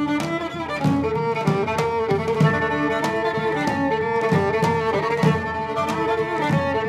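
Instrumental ensemble music: a violin and clarinet melody over double bass, with a steady beat from drums and daouli.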